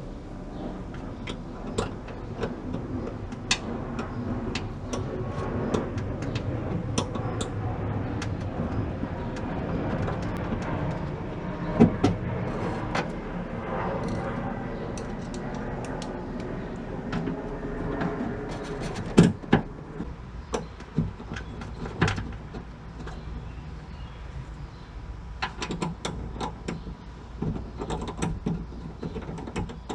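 Scattered clicks, taps and knocks of hands and tools working on a car's liftgate lock assembly, with a few louder clunks.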